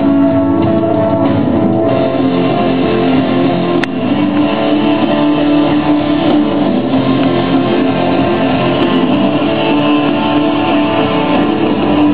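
Live band playing rock music: guitars and drums, loud and steady.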